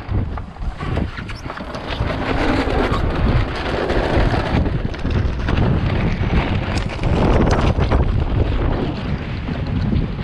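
Strong gusty wind buffeting the camera microphone on a small open sailing boat in a freshening breeze, with water rushing along the hull.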